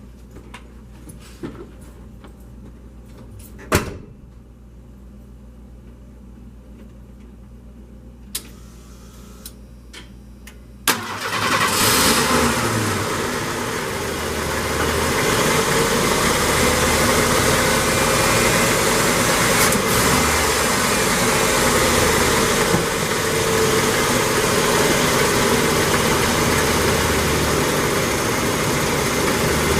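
A few clicks and a single thump, then a 1987 Ford F-150's 4.9-litre inline-six EFI engine starts about 11 seconds in, flares up briefly and settles into a steady idle. The idle has a little fluctuation but runs fairly smooth, with a new EGR pressure feedback (DPFE) sensor just fitted to cure its rough idling and stalling.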